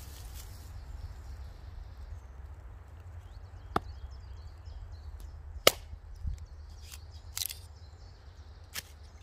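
A few sharp, isolated clicks and snaps, the loudest about four and six seconds in, over a steady low rumble.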